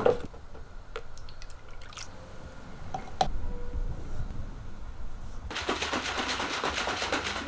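A few light clicks and knocks of kitchen handling, then about two seconds of liquid running into a container, starting a little past the middle.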